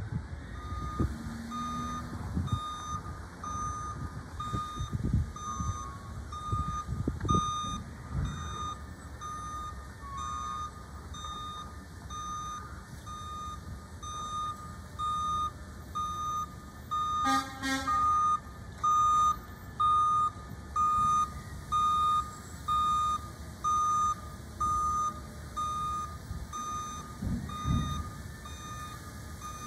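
Garbage truck's reversing alarm beeping steadily about once a second, growing louder in the second half, over the low rumble of the truck's engine.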